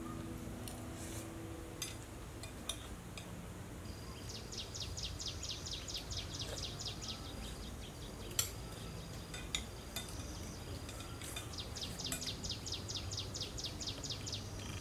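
Quiet outdoor background with two runs of rapid high-pitched chirps, about six a second, each lasting about three seconds, from a small creature. A few light clicks of spoons against plates come in between.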